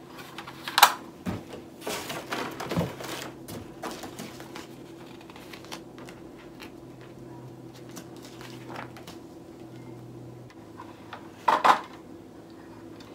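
Hard plastic clicks and knocks from an 18-inch ring light and its mounting bracket being handled and fitted, with a loud knock about a second in and another near the end, over a faint steady hum.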